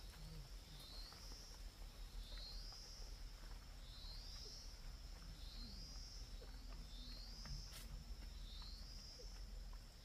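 A short rising high-pitched call repeated at an even pace, about one every second and a half, over a steady high hum. A single sharp click comes about three quarters of the way through.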